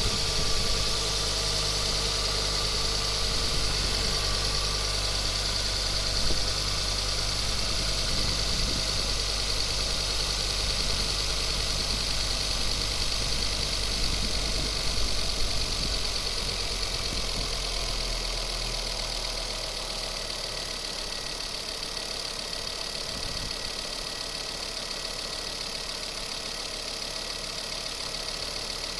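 Ford Focus ST mk2's turbocharged five-cylinder engine running steadily with a strange extra noise, which a garage traced to the exhaust manifold and its gasket bolts. The low rumble drops away about two-thirds of the way through.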